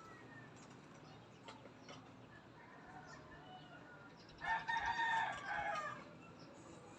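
A loud bird call, lasting about a second and a half, comes a little past the middle, with fainter short calls before it.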